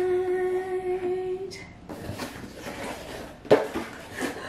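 A woman hums one steady note for about a second and a half. Then cardboard and paper rustle as a rolled tube of wrapping paper is handled and pulled from its box, with a sharper rustle or knock about three and a half seconds in.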